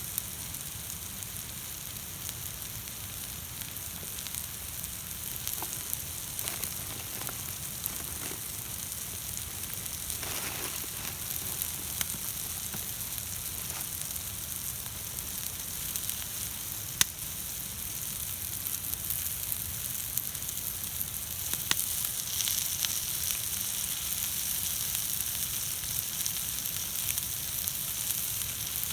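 Food sizzling steadily in a hot pan over a campfire, with a few sharp pops and clicks; the sizzle grows a little louder toward the end.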